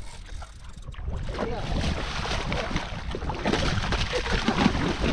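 Water splashing against the side of an open fishing boat as a tuna is gaffed and hauled up out of the sea, with wind on the microphone.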